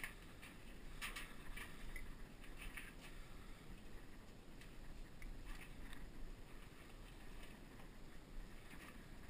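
Faint footsteps scuffing up concrete stairs, a cluster of scrapes in the first three seconds and a few more around five to six seconds in, over a low steady rumble.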